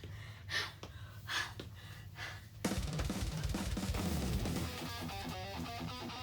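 A few faint breathy puffs of noise, then background music with a drum kit comes in about two and a half seconds in and carries on steadily.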